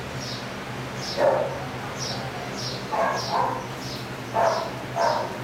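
Shelter dogs in kennel runs barking, about five barks spread unevenly: one a little over a second in, then a quick pair, then two more near the end. A faint high chirp repeats about every half second behind them.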